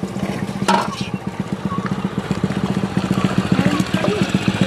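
A small engine running steadily nearby with a fast, even throb. A brief sharp noise sounds under a second in.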